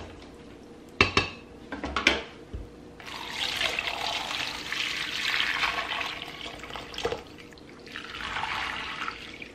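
Two knocks, then hot chicken broth poured from a pot through a plastic colander into a glass bowl, splashing steadily for about four seconds. After another knock comes a shorter, softer splash as the broth drains through the lifted colander.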